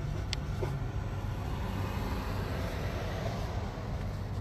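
Steady low engine hum with road traffic noise that swells and fades about halfway through.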